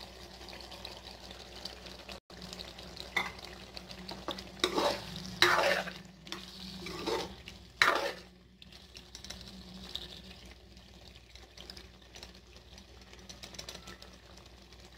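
Boneless chicken in thick masala sizzling in oil in a pot as a spatula stirs and scrapes through it, with a few loud scrapes between about four and eight seconds in; after that, a steady low sizzle.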